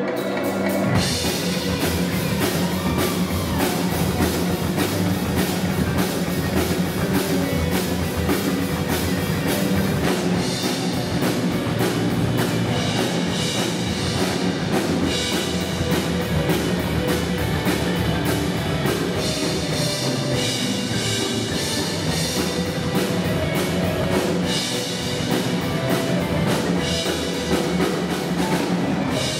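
Pearl acoustic drum kit played in a fast, busy drum part, with drums and cymbals struck densely. The cymbals come in strongly about a second in.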